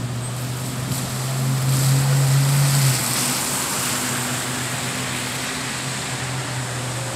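Street traffic: a vehicle passing with a swell of tyre and road noise a couple of seconds in, over a steady low engine hum.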